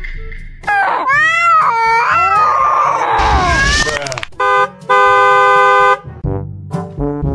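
Edited meme sound effects: a wailing cry whose pitch swoops up and down for about three seconds, then a short horn honk and a longer one-second honk, followed by a few short musical notes near the end.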